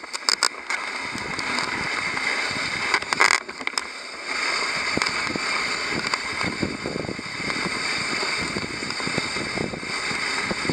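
Dog sled runners sliding over packed snow on a moving team: a steady hiss and rumble, with a few sharp clicks in the first second and again about three seconds in.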